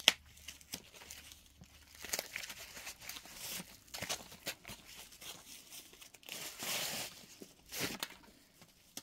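Plastic wrapping crinkling and rustling in uneven bursts as a handbag's shoulder strap is unwrapped, with a sharp click at the very start.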